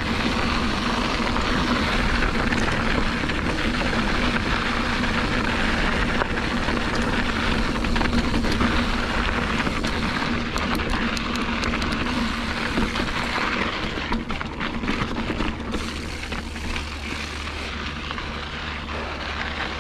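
Wind rushing over the microphone and tyres rolling on a dirt fire road as a Diamondback Recoil mountain bike descends fast. From about halfway, clicks and rattles of the bike over rough ground come in, and the rush eases in the last few seconds.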